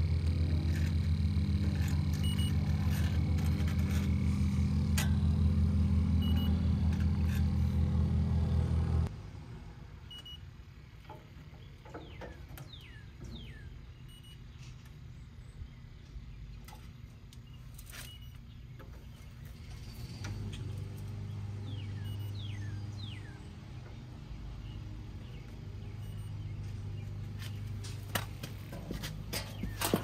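A steady low machine hum with several tones, cutting off abruptly about nine seconds in. After it come quieter light clicks and taps, and short falling chirps of birds.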